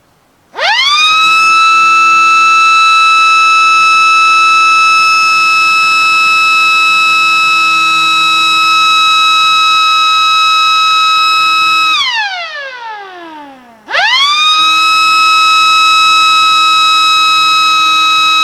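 Small battery-powered electric mechanical siren running, loud: it spins up within about half a second to a steady high wail and holds it, then winds down with a falling pitch as the power is cut, and spins back up to the same wail about two seconds later.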